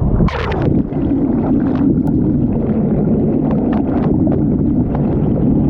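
Yamaha WaveRunner personal watercraft engine running at slow no-wake speed, a steady low hum. A brief rush of noise comes about half a second in.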